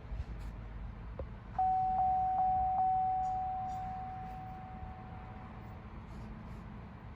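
An electronic chime at one pitch, dinging four times about 0.4 s apart; the tone rings on after the last ding and fades out over about three seconds. A light click comes just before it.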